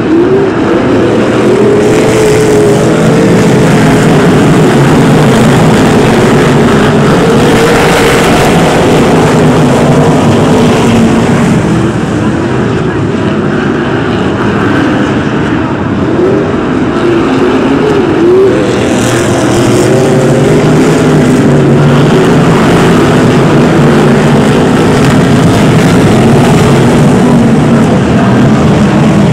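A pack of BriSCA F1 stock cars' V8 engines running loud at race pace, several engine notes overlapping and their pitch rising and falling over and over as the cars lift off and accelerate around the oval.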